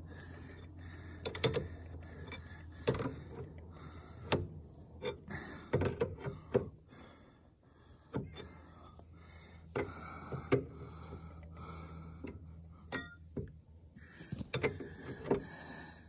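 Ratchet wrench clicking in irregular strokes, with light metal knocks, as a hydraulic fitting is tightened into a log splitter's control valve. The fitting will not thread down all the way.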